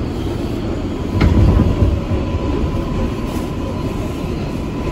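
Kawasaki R142A subway car standing at the platform with its doors closed, its equipment running as a steady low hum with a constant high tone. About a second in, a sharp click followed by a brief louder low rumble.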